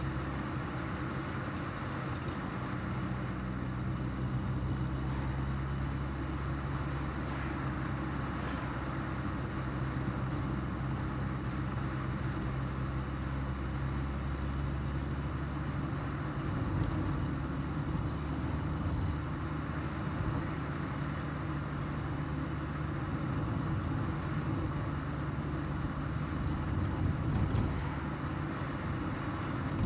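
1984 Volkswagen Golf Mk2 GL's carburetted four-cylinder engine running steadily under way, with tyre and road noise; the engine's note changes about halfway through.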